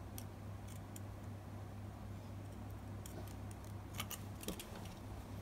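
Scissors cutting through cotton fabric: faint, sharp snips of the blades at irregular intervals, over a low steady hum.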